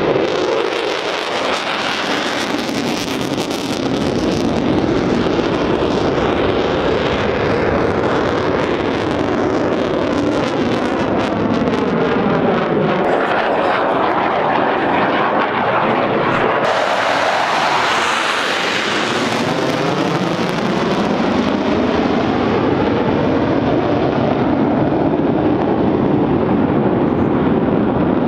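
Jet engine noise from U.S. Air Force Thunderbirds F-16 fighter jets flying past, loud throughout, with a sweeping change in tone around the middle as a jet passes overhead.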